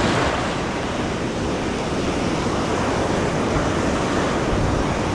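Ocean surf breaking and washing up the beach, a steady wash of noise, with wind buffeting the microphone.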